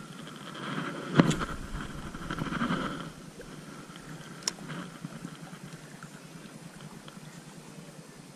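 A cast with a fishing rod and reel: a sharp click about a second in, then the reel whirring for about two seconds as line pays out, and a light click a little later.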